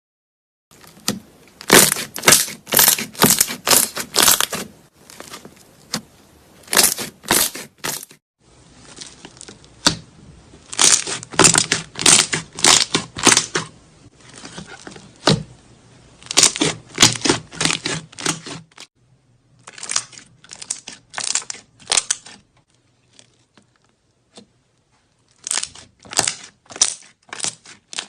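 Slime being squeezed and pressed by hand, giving runs of crackly, crunchy pops about two a second, in separate bursts with short silent gaps between them.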